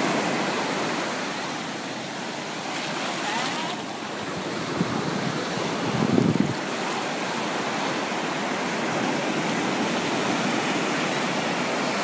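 Small ocean waves breaking and washing up a sandy beach in a steady wash of foam, with a short low rumble of wind on the microphone about six seconds in.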